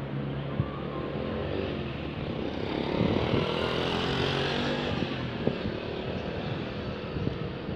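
Motor vehicle engine running nearby, swelling louder about three seconds in as it passes and fading again, with two sharp clicks.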